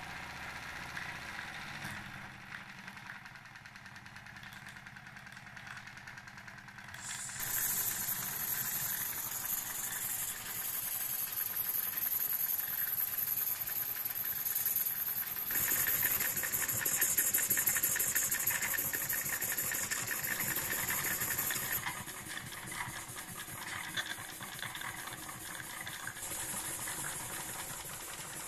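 Wilesco live-steam model engines, a D20 and a D48 twin-cylinder marine engine fed from the D20's boiler, running together: steam hisses with a fast, even chuffing rattle from the cylinders. The hiss and beats start about seven seconds in and grow louder again about halfway through.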